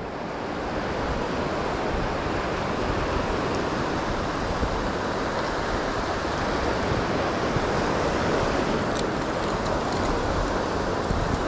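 Shallow surf washing in over a sand beach: a steady rush of breaking waves and foam, swelling a little in the first second and then holding even.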